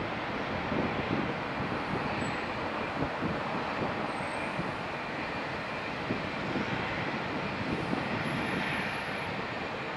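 Finnair Airbus A319's CFM56 turbofan engines running at low thrust as the airliner taxis slowly onto the runway. A steady jet rumble and hiss, rising slightly in the upper range near the end.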